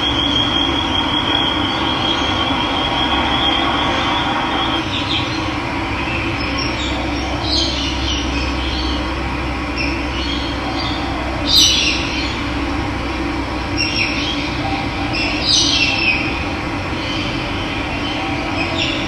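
Running water rushing steadily, with birds calling over it: a high, even trill for the first four seconds or so, then short calls every couple of seconds, the loudest just under halfway through.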